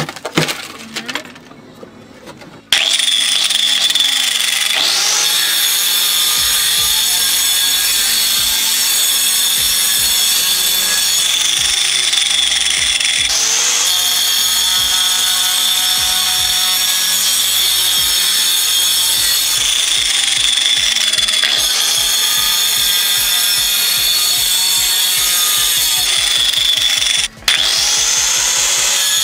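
A few light knocks, then a corded angle grinder fitted with a toothed saw disc starts sharply about three seconds in, cutting into a block of ice. It runs with a loud, steady high whine whose pitch sags and swoops back up several times as the disc bites into the ice and lifts off. The sound cuts out for an instant near the end.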